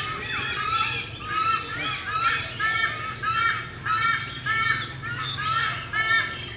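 A flock of birds calling together: many short, arched, rising-and-falling calls overlapping several times a second.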